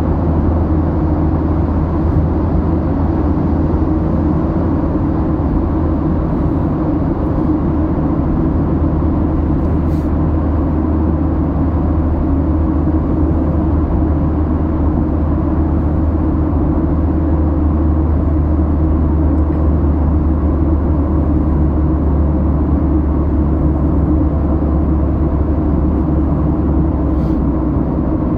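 Steady low road and engine noise inside the cabin of a Mitsubishi sedan moving at road speed.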